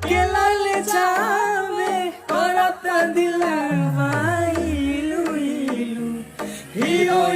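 Bhojpuri song with a singer's voice over backing music and a low gliding bass, the vocal line pausing briefly twice.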